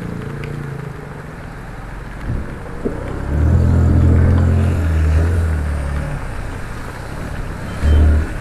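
Motor vehicle engines running on a flooded, rain-soaked street, a low steady drone that grows loud about three seconds in for a few seconds, with a short loud burst near the end, over a constant rushing hiss.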